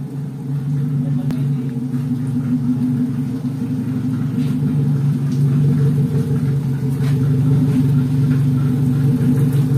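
An engine idling steadily, getting gradually louder.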